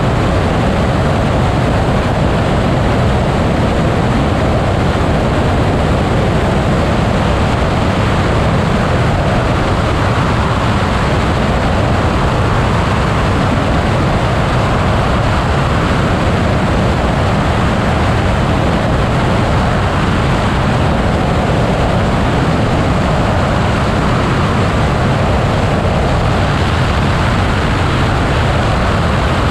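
Steady in-flight noise in an Altus motorglider: a constant low rumble with airflow hiss, unchanging throughout.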